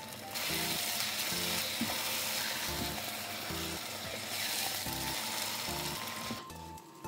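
Keema curry mince sizzling in a nonstick frying pan while it is stirred with a spatula. The sizzle starts just after the beginning and stops about six seconds in.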